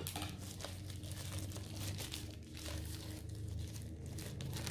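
Hands crinkling and rustling a thin white packaging wrapper while unwrapping it, a continuous run of small crackles.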